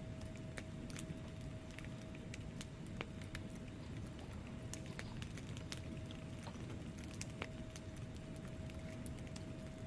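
Wood fire in a fireplace crackling, with irregular sharp pops and snaps from the burning logs over a low steady rumble of flame, and a faint steady whine underneath.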